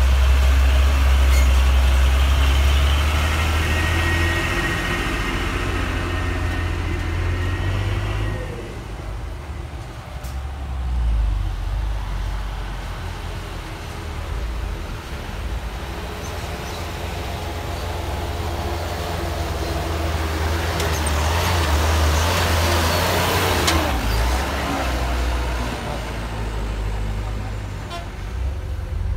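Mitsubishi Fuso 220PS dump truck's diesel engine running loud and low as the truck pulls past at close range, with a steady whine over it. The rumble drops away after about eight seconds. Truck engines go on running further off, swelling to a louder, noisier stretch about twenty seconds in, with people's voices in the background.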